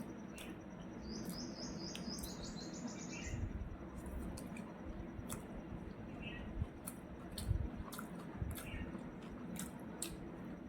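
Close eating sounds of chewing crisp fried pakoda: sharp crunchy clicks all through, with a few low thumps. About a second in, a bird chirps a quick run of high notes lasting about two seconds.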